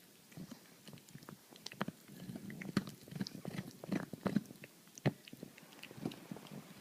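A pug snoring: an irregular, crackly rattle of clicks that builds about two seconds in and eases off after about four and a half seconds, with one sharper click near the end.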